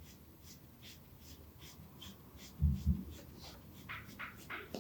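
Massage strokes on skin: quick, regular rubbing strokes, with two dull thumps about halfway through and a few louder scratchy strokes near the end.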